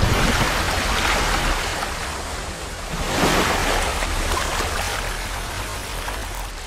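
Whooshing rush of splashing water in a logo sound effect: it surges again about three seconds in, then slowly fades over a low rumble.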